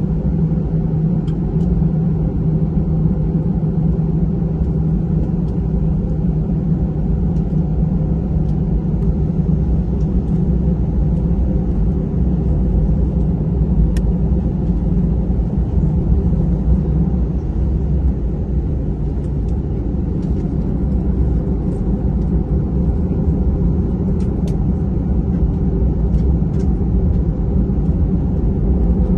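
Steady low rumble inside the cabin of an Airbus A320 moving on the ground, with its engines running at low power and the cabin air supply running. The sound holds even throughout, with a few faint ticks.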